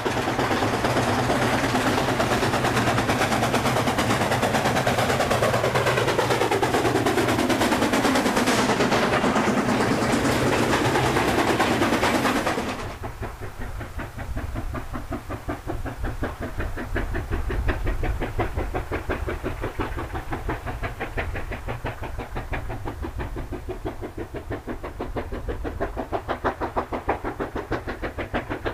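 Steam locomotive working a train hard, loud and close at first with sounds sweeping down in pitch. About 13 seconds in the sound cuts abruptly to a quieter steam locomotive hauling passenger coaches, its exhaust beats coming in a rapid, even rhythm.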